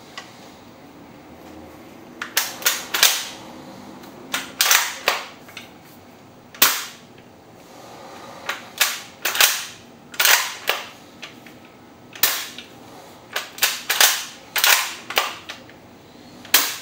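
G&G Kar98k CO2 airsoft bolt-action rifle being fired and its bolt cycled. Sharp gas shots and clacks come in short clusters every second or two.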